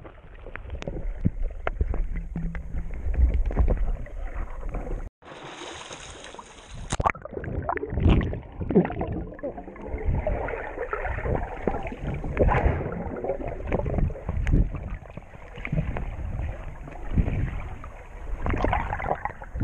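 Underwater sound of swimmers diving through a rocky passage: muffled water movement from their strokes, with many small knocks and clicks. The sound drops out briefly about five seconds in.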